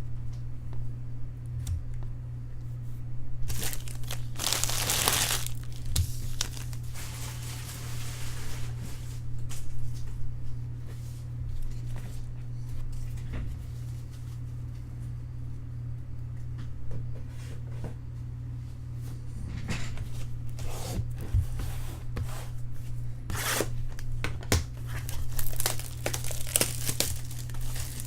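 Baseball card pack wrappers being torn open and crinkled by hand, in scattered bursts, over a steady low hum.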